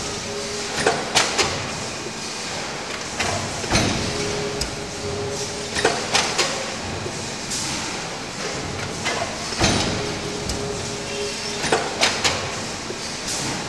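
Multi-station deep-drawing transfer press stamping oil filter housings in automatic cycle. A cluster of two or three sharp metal clanks comes every two and a half to three seconds over a steady machine hum.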